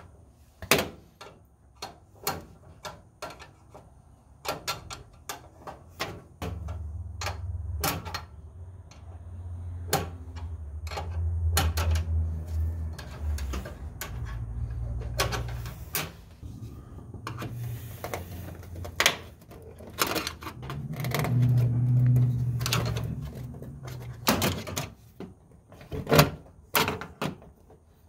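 Hand tools clicking and clinking on steel brake line fittings and clips: irregular sharp metallic taps and knocks as the brake line is worked loose from the proportioning valve and its firewall clips. A low rumble comes in about a third of the way through and again about three quarters through.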